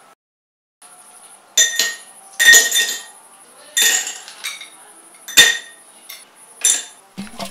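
Ice cubes dropped one at a time into an empty glass tumbler, clinking against the glass and each other: about six sharp clinks, each ringing briefly.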